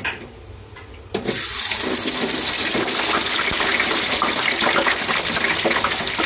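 Frozen chips lowered into hot oil in an electric deep fryer: about a second in, the oil starts a loud, steady hiss and bubbling that keeps up as the chips fry.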